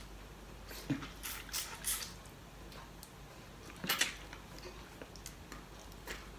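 Steamed prawn peeled by hand at close range: a run of small crackles and clicks from the shell about a second in. Then a louder short mouth sound about four seconds in as the prawn is eaten, and one more click near the end.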